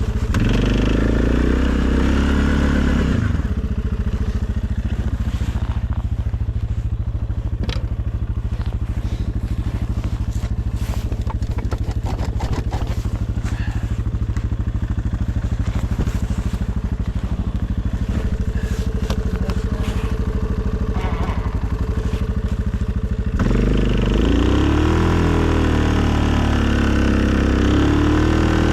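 2020 Suzuki KingQuad ATV engine running, its pitch rising and falling in the first few seconds, then holding a steady low note for about twenty seconds before revving up and down again about five seconds before the end. Scattered light clicks are heard over the steady stretch.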